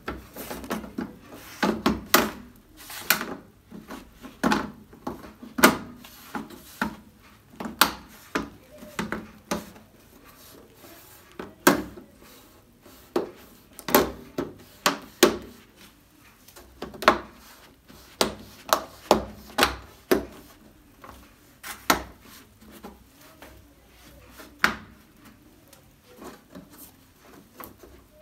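Plastic front bezel of an LED TV being handled and pressed into place on the panel: a run of irregular clicks and knocks of plastic, a few of them loud.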